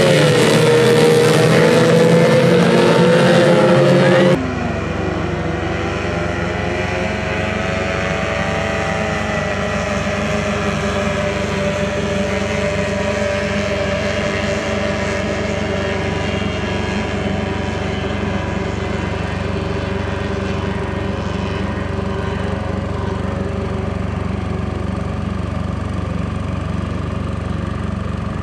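Several racing powerboats' outboard engines running at high revs, their overlapping pitches wavering up and down. About four seconds in, the sound cuts abruptly to a quieter, steadier drone of the engines.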